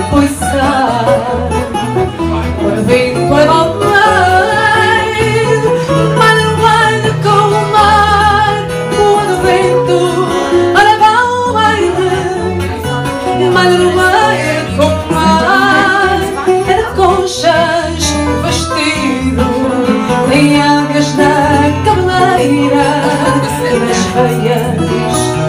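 Live fado: a Portuguese guitar and a classical guitar playing a lively plucked accompaniment, with a woman's singing voice.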